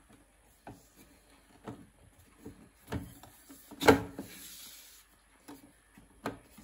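Plastic clicks and knocks from the drip tray and front parts of a Lavazza A Modo Mio Idola capsule coffee machine being handled, with one sharper knock about four seconds in followed by a brief scrape.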